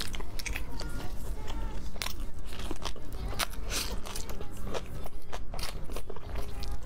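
Close-miked eating: bites and wet, crunchy chewing of chili-dressed napa cabbage, with many sharp crackles and smacks.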